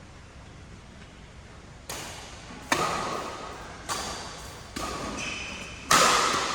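Badminton rally: rackets striking the shuttlecock five times, roughly a second apart, starting about two seconds in, each hit echoing in a large hall; the last hit is the loudest.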